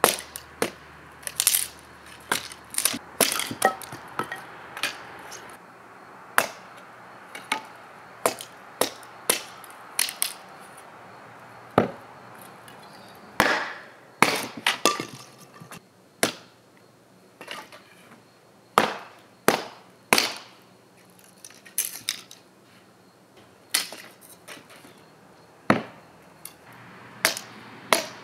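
Hatchet splitting kindling on a wooden chopping block: a long run of sharp chops and cracks, about one a second and unevenly spaced, some with a brief ringing after the strike.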